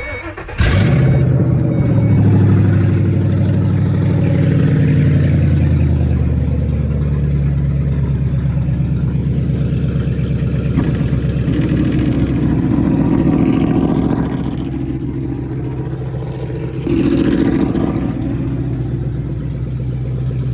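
Car engine starting about half a second in and settling from a fast idle, then revved twice: a longer rev past the middle and a short one near the end.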